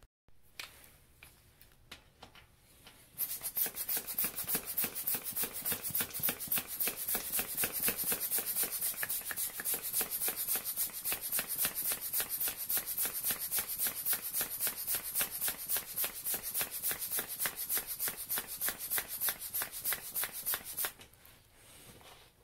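Small hand bicycle pump worked fast, a rapid, even run of strokes with a rush of air on each, inflating a punctured mountain bike tyre. The pumping starts about three seconds in and stops a second or so before the end.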